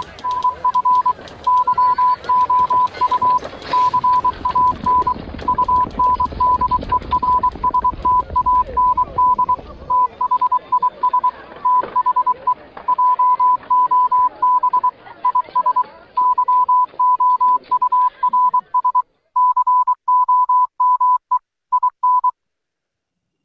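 Morse code sent as beeps of a single steady tone, in short and long pulses, spelling out the message 'If you can understand this, then the job is yours, just walk through the door.' A low rumble sits under the beeps for the first ten seconds or so, and the beeps stop about twenty-two seconds in.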